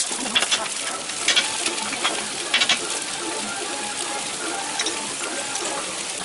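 Dosas sizzling on a large flat griddle, with a metal spatula scraping and tapping against the griddle several times.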